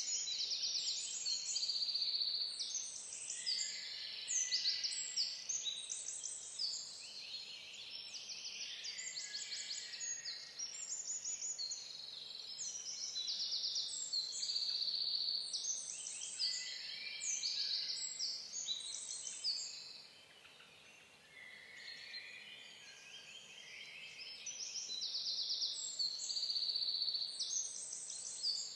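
A chorus of songbirds singing and calling, many songs overlapping. It thins out briefly about three-quarters of the way through, then picks up again.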